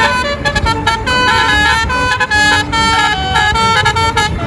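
Telolet bus horn: a multi-tone horn playing a quick, jumpy melody of short tooting notes, over a low rumble.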